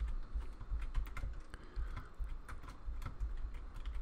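Typing on a computer keyboard: quick, irregular key clicks with low thuds under them, as code is re-indented in a text editor.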